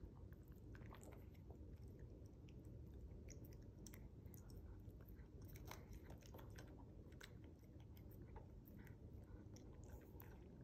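Cat chewing and biting a hand-fed treat: faint, irregular wet clicks and small crunches. Under them runs a steady low purr.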